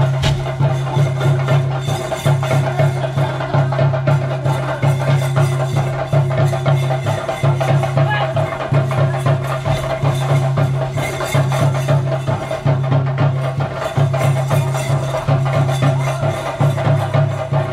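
Theyyam percussion: chenda drums beaten in a fast, unbroken rhythm, with a steady held tone above the drumming.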